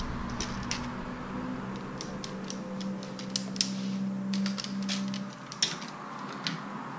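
Light clicks and taps from a feeder rod's sections and its clear plastic cover being handled, scattered irregularly, over a steady low hum that stops about five seconds in.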